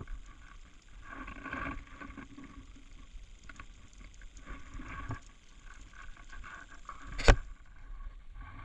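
Many small birds calling faintly as a flock flies over a pond, over a low rumble of wind on the microphone. There is a single sharp click about seven seconds in.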